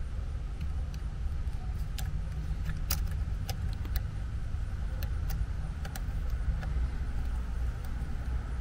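Metal lock pick and tension tool clicking in the pin tumblers of a Kwikset knob lock while it is single-pin picked: a dozen or so sharp, irregular clicks. A steady low rumble sits underneath.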